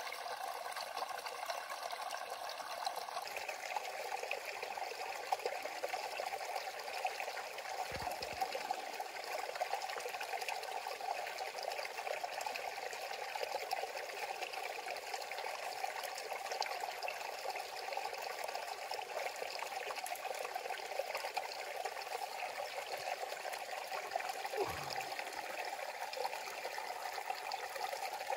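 Shallow forest stream trickling steadily over rocks, with a soft low bump twice, about a third of the way in and near the end.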